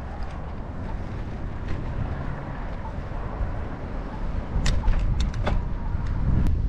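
Low rumble of wind and road noise on an arm-strapped action camera's microphone while riding, with a few sharp clicks or rattles about five seconds in.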